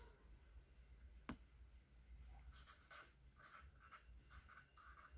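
Faint scratching of a pen writing on paper in short strokes, starting a couple of seconds in, after a single sharp click about a second in.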